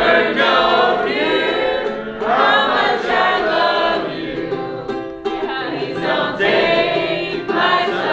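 A group of people singing together to a strummed ukulele.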